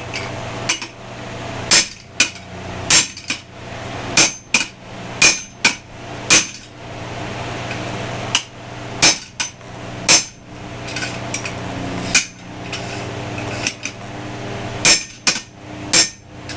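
Hammer blows on a 1/2-inch rebar bar being forged, isolating the end to form the head of a Thor's hammer pendant. The strikes ring sharply and come irregularly, often in quick pairs, with two short pauses. A steady hum runs underneath.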